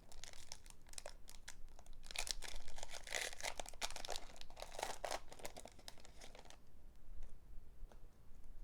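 Foil wrapper of a Pokémon card booster pack being torn open and crinkled, a dense crackling busiest a few seconds in, that dies down to a few light rustles and ticks after about six and a half seconds.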